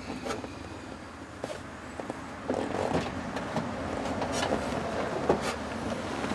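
Hand-handling noises of a taped-up ashtray housing being worked into a truck's dashboard opening: scattered light clicks, small knocks and scraping, busier in the second half.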